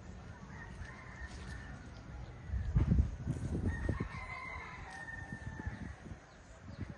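An animal's drawn-out pitched call, a short faint one near the start and a longer, stronger one of about a second and a half a little past the middle, over low rumbling, with a burst of loud low thumps just before the longer call.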